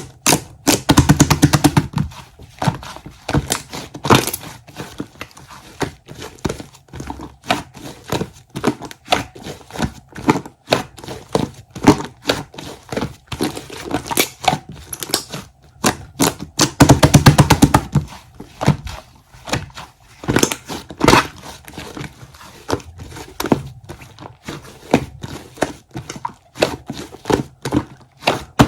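Slime being squished, poked and stretched by hand: an irregular run of sticky clicks and pops, with two denser bouts of rapid crackling, near the start and again a little past halfway.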